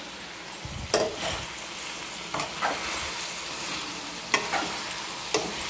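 Steel spoon stirring diced potato and cucumber curry in a frying pan over a steady sizzle, with sharp scrapes and knocks of the spoon against the pan about six times.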